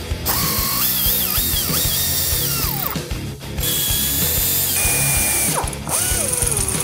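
Power ratchet spinning off the nuts that hold a golf car's rack and pinion to the axle, in three runs, its motor whine rising and falling in pitch. Background music plays underneath.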